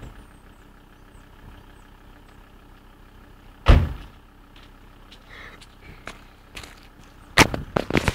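A VW T4 van's door slams shut once, sharply, about four seconds in, over the faint steady hum of the idling engine. A few light footsteps follow, then near the end a quick run of loud knocks and clatter as the camera is handled.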